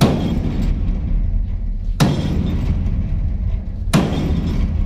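Sledgehammer striking the corrugated steel side wall of a shipping container to beat out accident damage: three heavy blows about two seconds apart, each ringing briefly. A steady low rumble runs underneath.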